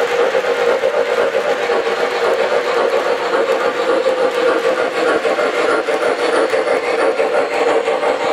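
Model freight train cars rolling along metal track, a steady whirring hum with faint clicking from the wheels.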